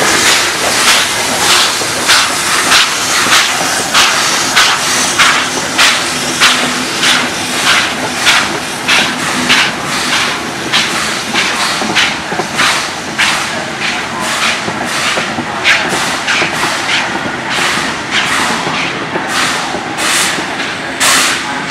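Steam-hauled passenger train pulling out, the coaches rolling past to a steady run of sharp, hissing exhaust beats, about two to three a second, picking up slightly near the end as the train gathers speed.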